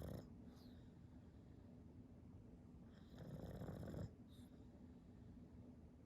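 A pug snoring in its sleep: one snore about three seconds in lasts about a second and stops abruptly, with the end of another right at the start. Each snore is followed by a brief high whistle.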